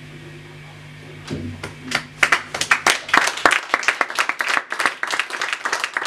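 A small audience clapping after a song ends. Scattered claps begin about a second and a half in and build into steady applause from about two seconds in.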